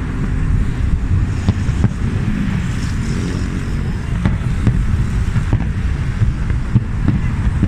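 Fireworks bursting: scattered sharp bangs, a few in quick pairs, over a steady low rumble.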